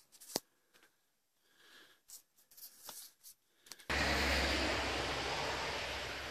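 Light cracks and snaps of dry twigs and brush being stepped through, the sharpest snap about half a second in. About four seconds in, an abrupt change to a loud rushing noise with a deep rumble that slowly fades: a vehicle passing on a road.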